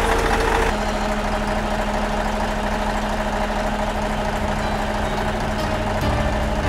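Heavy diesel truck engine idling with a steady hum.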